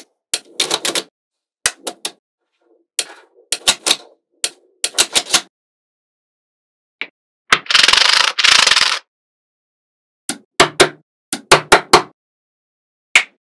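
Magnetic balls clicking sharply as they snap together, in irregular clusters of clicks with silent gaps between. Partway through comes a rattling scrape lasting about a second and a half, as a bunch of balls slides and shifts against each other.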